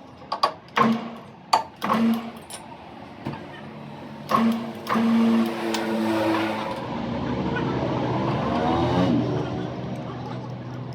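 Several sharp metal clanks, then a machine motor running with a hum that wavers in pitch for a few seconds before easing off.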